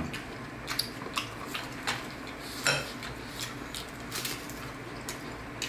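Scattered light clicks and taps of chopsticks against ceramic soup bowls, with chewing of fried dough sticks; one sharper clink a little before the middle.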